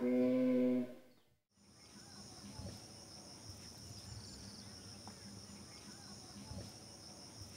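A Buddhist chant ends on a held note within the first second, then fades out. After a brief gap comes a steady high-pitched drone of insects over quiet outdoor ambience.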